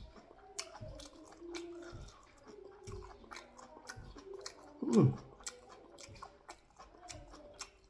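Close-up mouth sounds of a person eating: steady chewing with many small wet clicks, and one short, louder voiced sound from the eater about five seconds in.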